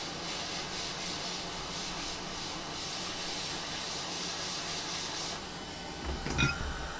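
Hot-air gun blowing steadily to shrink heat-shrink tubing over a soldered cable joint, cutting off about five seconds in. A short knock follows near the end.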